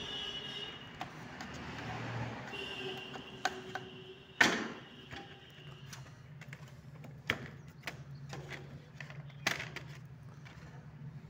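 Hands handling a motorcycle's plastic body panels: scattered clicks and knocks, the loudest a sharp knock a little before halfway. A low steady hum sets in around the middle.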